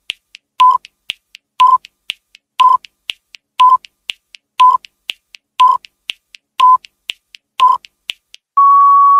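Quiz countdown timer sound effect: a short beep about once a second with fainter ticks between, ending near the end in a longer steady beep as the count reaches zero.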